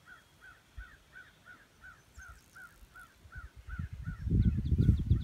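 A bird calling a steady series of short, arched notes, about three a second. From about four seconds in, a loud low buffeting rumble on the microphone rises over it.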